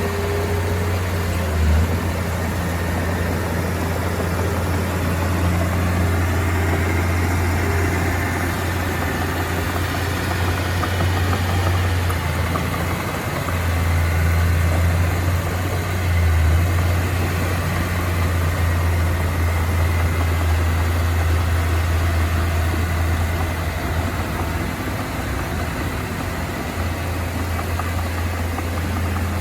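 Heavy diesel engine of earthmoving machinery running steadily with a low drone, swelling briefly a couple of times about halfway through.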